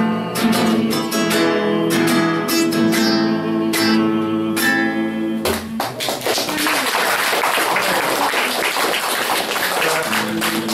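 Acoustic guitar picking the final notes of a song, closing on a struck chord about halfway through. Audience applause follows at once and runs on steadily.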